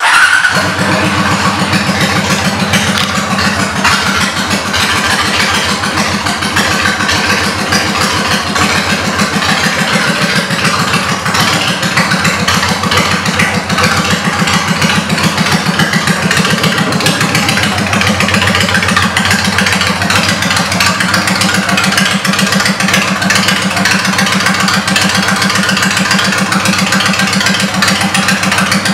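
Honda Shadow Spirit 750's V-twin engine, breathing through aftermarket exhaust pipes, cuts in loudly at the very start and then runs at a steady, even idle.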